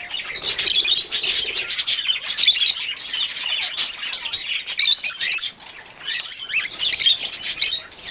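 A flock of small pet parrots, such as lovebirds, chirping and chattering in an aviary, with many high calls overlapping. There is a brief lull about six seconds in.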